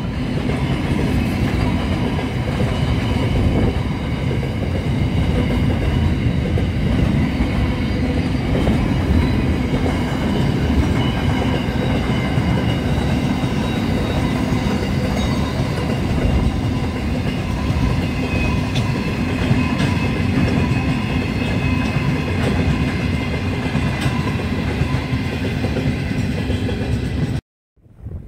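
Freight train of open wagons rolling past, a steady loud rumble of wheels on the rails. It stops abruptly near the end.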